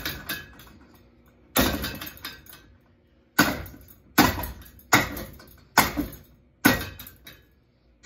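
Hammer blows on a ceiling fan's motor housing mounted to the ceiling. There are six sharp strikes, each ringing briefly. The first comes about a second and a half in, and the rest follow roughly one a second.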